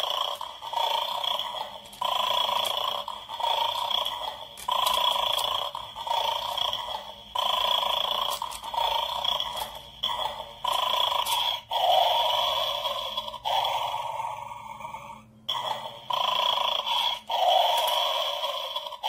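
A recorded dog growling and snoring effect plays from the small speaker of a battery-powered 'angry dog' bone-snatching game toy. It repeats in stretches of a second or two with short gaps. Light plastic clicks from the tongs picking up bones fall in between.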